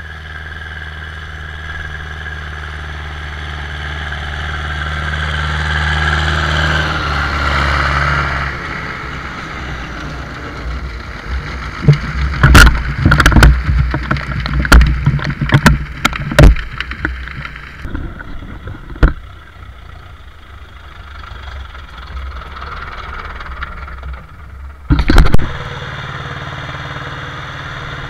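Ursus C-360 tractor's four-cylinder diesel running steadily and growing louder as it approaches with a manure spreader. About halfway through, flung clumps of manure land around and on the camera in a quick run of sharp thuds. A loud thump comes near the end, followed by a tractor diesel idling.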